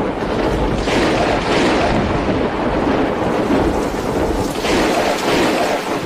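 Thunderstorm: thunder rumbling over steady rain, swelling about a second in and again near the end.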